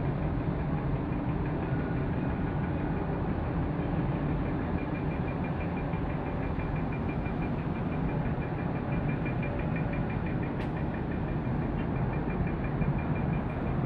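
Steady running noise of a vehicle, with a fast, even ticking high above it from a few seconds in and one sharp click near the end.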